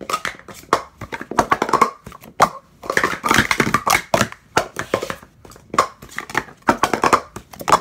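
Blue WSSA sport-stacking cups being stacked up and down in the 3-6-3 sequence: quick runs of hard plastic cups clattering against each other and tapping onto the mat, in several bursts.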